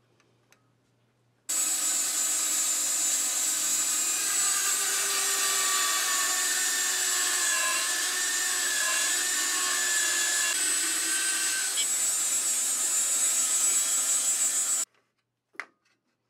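Bandsaw cutting a hardwood blank, a steady sawing sound with a high whine. It starts abruptly about a second and a half in and cuts off sharply near the end, followed by a single short click.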